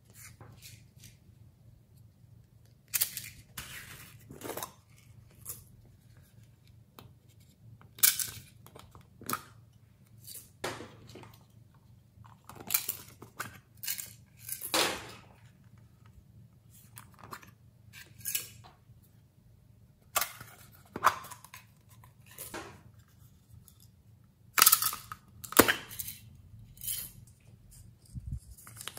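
Small plastic containers of glitter and sequins being handled and shaken out over a glass dish of slime: irregular clicks, taps and short rustles.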